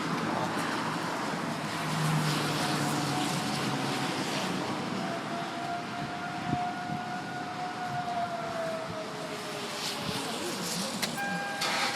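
Distant outdoor tornado warning siren: a faint tone that swells and then slides down in pitch as it fades, over a steady background hiss.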